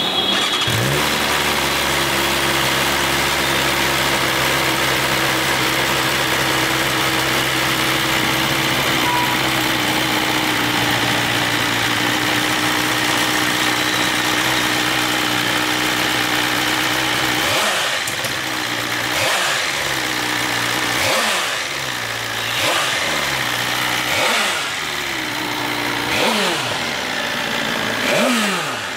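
BMW S1000RR inline-four superbike engine catching just after the start and settling into a steady high idle. From about two-thirds of the way through it is blipped repeatedly, the revs rising and falling sharply about seven times.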